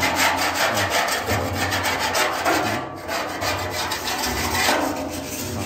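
Rapid, even rasping strokes of a hand tool, a wire brush or scraper, worked back and forth over an old iron door. It is scrubbing off rust and old paint to prepare the metal for repainting.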